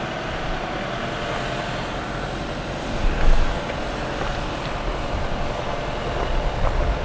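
Unimog camper truck's diesel engine running steadily as it drives slowly away over a gravel track, with a brief louder swell about three seconds in.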